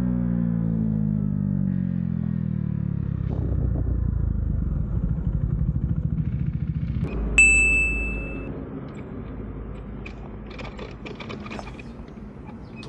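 KTM Duke 390 single-cylinder engine with its revs falling as the bike slows and coasts, then running low and uneven. About seven seconds in a single sharp ding rings out, and the engine sound drops away after it, leaving faint clicks.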